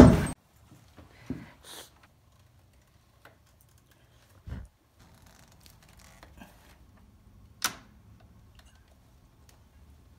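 Faint, scattered clicks and knocks of a hand tool being worked on PEX pipe ends, with a dull thump about halfway and one sharp click about three-quarters of the way through.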